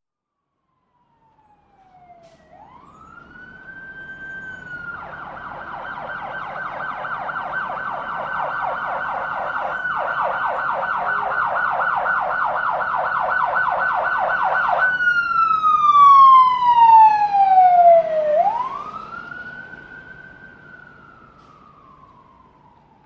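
Emergency vehicle siren growing steadily louder. It wails upward, switches to a fast warbling yelp for about ten seconds, then sweeps down in a long falling wail at its loudest, rises and falls once more, and fades away.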